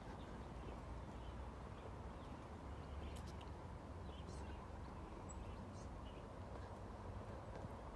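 Footsteps walking down wet concrete steps, with faint short bird chirps over a steady low outdoor rumble.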